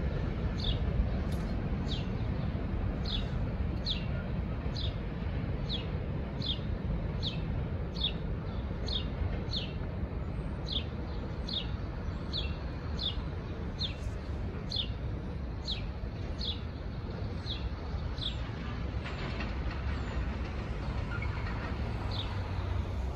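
Freight train's wheels rumbling on the rails as the last boxcars of a CSX manifest roll away. Over it a bird repeats a short, high, falling chirp over and over, stopping a few seconds before the end.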